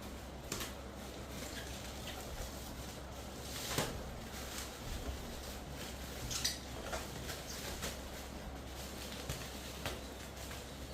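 A few scattered light clicks and rustles of things being handled, over a steady low hum.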